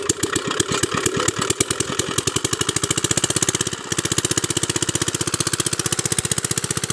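Small single-cylinder hopper-cooled diesel engine driving a water pump, just started and settling from an uneven beat into a fast, steady chug. Water starts gushing from the pump outlet partway through, as the pump picks up its prime.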